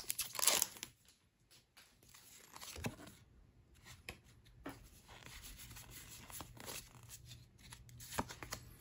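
Foil Pokémon booster pack wrapper torn open by hand, crinkling and crackling, stopping about a second in. Then faint, scattered rustles and clicks of the cards being handled.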